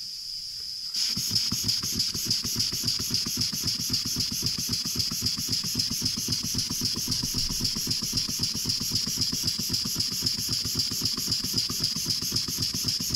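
Antique brass walking beam steam engine running on compressed air, starting up about a second in: a steady hiss of air with rapid, nice and even exhaust beats. Rattling and knocking come through as well, which the owner puts down to loose parts still to be found.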